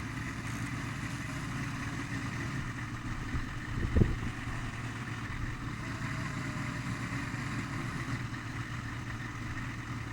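A steady low engine hum, with a single knock about four seconds in.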